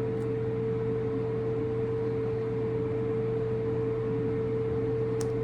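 A fan motor running steadily, a constant mid-pitched hum over a low drone.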